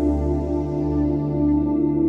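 Ambient background music: long held tones over a steady low drone.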